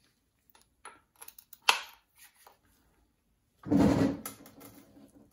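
Socket wrench being worked onto the oil drain plug under a VW Beetle engine: a few light metal clicks, a sharp clink about one and a half seconds in, then a louder, fuller clunk near four seconds that fades over about a second.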